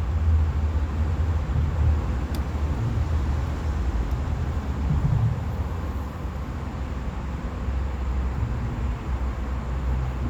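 Steady low rumble of road traffic crossing the bridge overhead, swelling and easing as vehicles pass.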